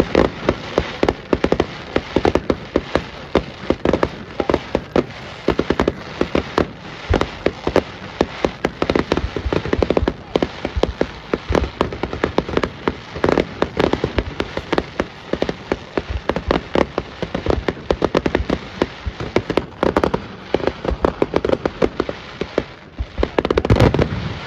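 Fireworks crackling: a dense, irregular rattle of sharp pops, many a second, with no let-up.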